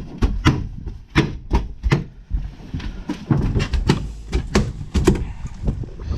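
Irregular knocks and thumps, about three a second, with a low rumble underneath: handling sounds as a freshly caught halibut is being put into the fish box on a fishing boat.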